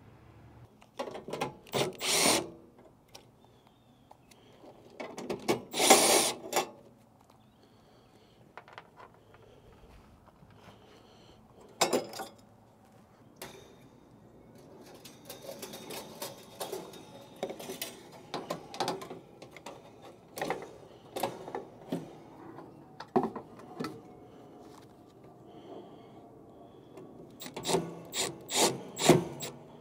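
Hand-tool work on an air handler's sheet-metal cabinet while an electric heater kit is fitted: scattered clicks, knocks and scraping of metal parts and screws. Louder rattling clatters come about 2 and 6 seconds in, once more around 12 seconds, and in a quick run of several near the end.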